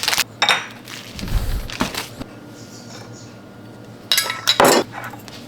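Kitchen clatter of dishes and cutlery: scattered knocks and clinks, a dull thud about a second and a half in, and a louder cluster of clinks about four seconds in.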